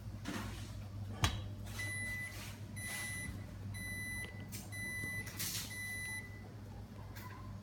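Bosch induction hob giving its strange noise: a steady low hum with a high-pitched tone that comes and goes about once a second, five times, after a sharp click about a second in.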